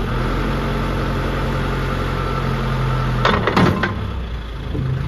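Turbocharged diesel engine of a John Deere 310D backhoe idling steadily, with a few sharp metallic clanks about three and a half seconds in.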